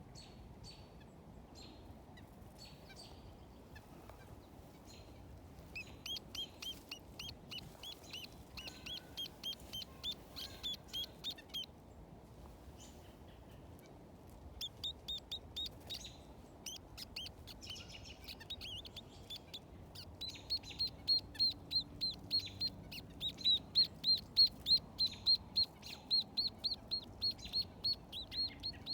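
Nuthatch giving series of short, nasal, quacking call notes, about three or four a second. The calls come in bouts and grow into a louder, steady run in the last third.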